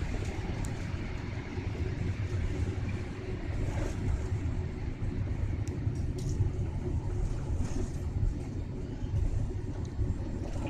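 Airliner cabin noise while taxiing after landing: a steady low rumble of the engines and the aircraft rolling, with a few faint ticks.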